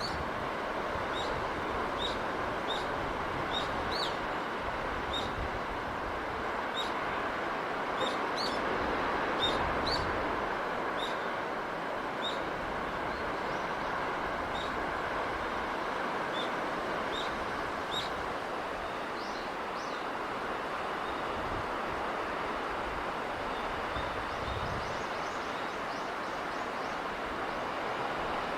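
Steady rushing noise of sea breeze with a small bird chirping repeatedly over it: short high chirps about once a second through roughly the first eighteen seconds, sparser and fainter after.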